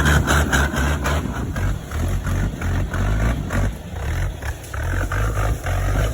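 Suzuki Jimny off-road engine revving hard in uneven surges, straining.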